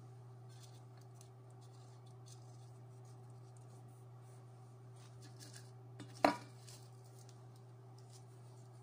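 Faint, scattered computer keyboard clicks over a steady low electrical hum, broken about six seconds in by one sharp knock with a brief ring.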